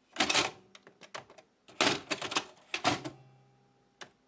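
Mechanical push-button controls of a Panasonic NV3000 portable VHS recorder being pressed: three loud clunks with smaller clicks between them, a short steady hum after the third, and a last click near the end. The deck is not responding to the controls.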